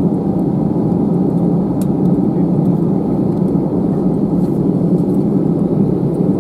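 Cabin noise inside an Airbus A320-214 taxiing after landing: a steady low rumble from its CFM56 engines at taxi power and the airframe rolling along the taxiway.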